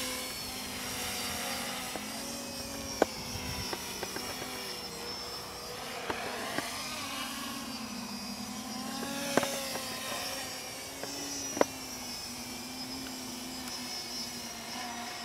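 Quadcopter with Sunnysky X2212 980Kv brushless motors flying and hovering, its propellers giving a steady whine whose pitch wavers up and down as the motor speeds shift. A few sharp clicks stand out, the loudest about 3, 9½ and 11½ seconds in.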